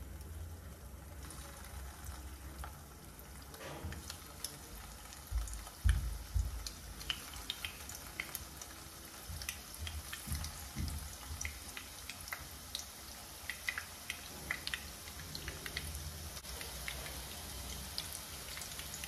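Spinach-and-gram-flour kofta balls deep-frying in hot oil in a kadhai: a steady sizzle with crackling pops that grow busier as more balls are dropped in. A few dull thumps come about five to seven seconds in.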